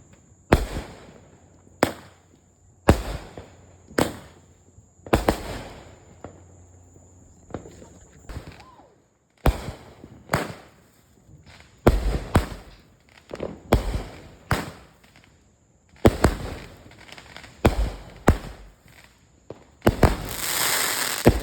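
Fireworks going off: a long irregular string of sharp bangs, roughly one a second, each with a short echoing tail. Near the end comes a denser crackling, hissing burst lasting about a second and a half.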